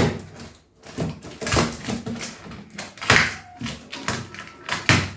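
Non-stick pots being unpacked and handled: a few sharp knocks and clunks with handling noise in between.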